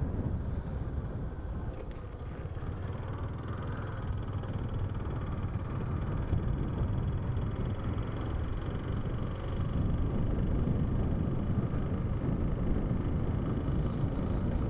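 Motorcycle riding at road speed: its engine runs steadily under a heavy low rumble of wind on the microphone.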